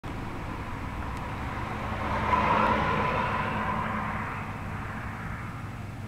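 A vehicle passing by: a rushing noise that swells to its loudest about two and a half seconds in and then fades, over a steady low background hum.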